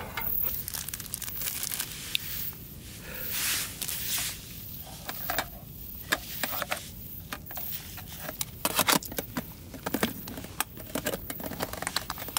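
Packaging being handled: crinkling and tearing, with irregular sharp clicks and short rustles, most busy about three quarters of the way through, as food is unpacked for a meal.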